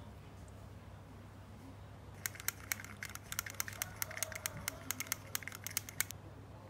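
Rapid, irregular light clicking of a tool tapping against the sides of a small plastic cup as lacquer paint is mixed. It starts about two seconds in and stops about four seconds later.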